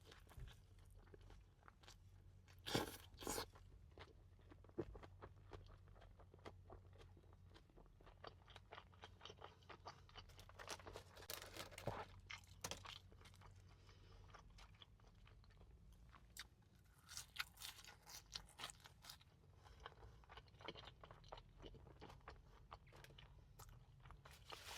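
A person chewing and crunching fast food close to the microphone, with a louder bite about three seconds in and further bursts of crunching later on.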